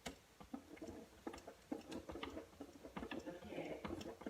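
Faint sound from a 1959 Admiral Y3154 vacuum-tube AM radio's speaker during a pause in a news broadcast, with irregular crackling clicks throughout.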